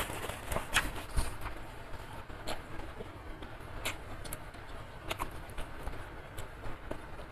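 Close-miked chewing of a mouthful of spicy instant noodles with beef skin and meatballs, mouth closed, with scattered mouth clicks about once a second.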